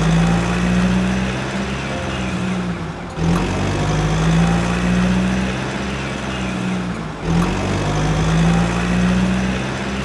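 Vehicle engine running in a steady hum that swells slightly and dips. It breaks off and starts again about every four seconds, as a looped engine sound.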